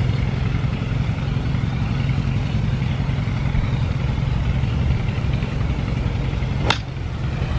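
A golf iron strikes the ball off the tee once, a sharp click near the end, over a steady low rumble.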